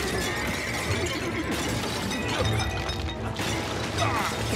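Dramatic film score with crashes of clay jars smashing and shattering.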